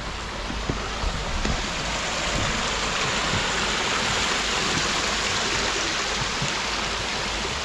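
Spring water running through a built catchment channel: a steady rush of flowing water that gets a little louder over the first two seconds.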